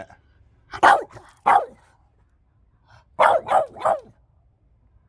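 French bulldog barking: two barks about a second in, then three quick barks about three seconds in.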